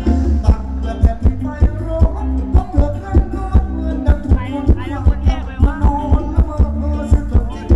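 Thai ramwong dance music from a live band: a loud, steady drum beat about twice a second over a bass line, with a melody line that wavers in pitch.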